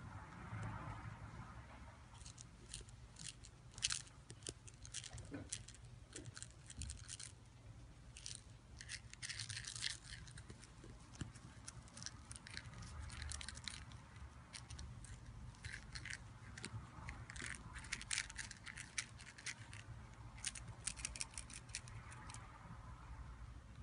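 Faint clusters of quick scratching and rustling on a crinkly pad as a kitten plays with a toy mouse, with one sharper tap about four seconds in.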